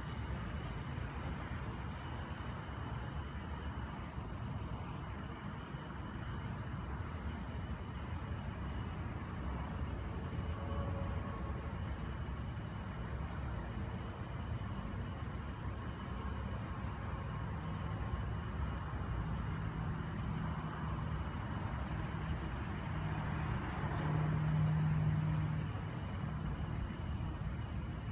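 Crickets chirping in a steady, fast, even trill over a low, continuous rumble. A low hum swells for a couple of seconds near the end.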